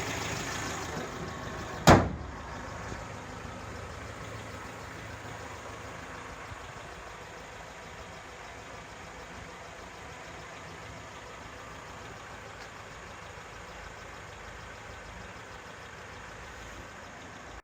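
Suzuki Jimny Sierra's engine idling steadily, with one sharp thump about two seconds in.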